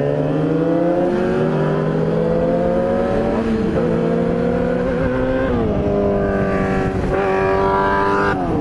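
Yamaha R6 sport bike's inline-four engine accelerating through the gears. The pitch climbs, then drops at each upshift, about four times, over steady wind rush.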